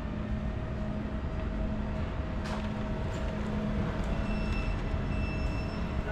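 Steady low mechanical hum of refrigerated display counters, with a faint constant tone above it and one light click about two and a half seconds in.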